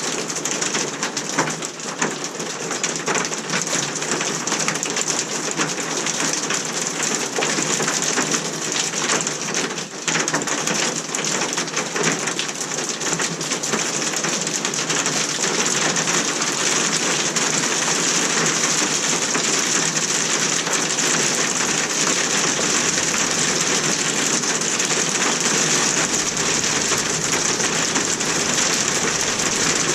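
Hail and rain pelting down steadily, a dense hiss of countless small impacts, during a spring hailstorm.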